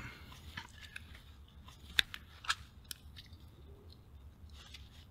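Small clicks and scrapes of plastic and metal as a Sony 2R-29 pocket transistor radio is taken apart by hand, its circuit board being worked out of the case. The sharpest three clicks fall between about two and three seconds in.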